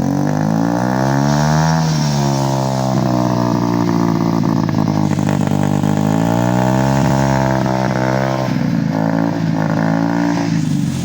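70cc motorcycle engine running through a newly fitted aftermarket exhaust, blipped up and down: the exhaust note climbs over the first two seconds, drops back, swells again in the middle and settles lower and a little uneven near the end.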